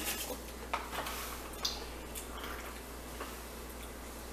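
Quiet eating noises at a table: a few soft clicks and smacks in the first couple of seconds, over a low steady hum.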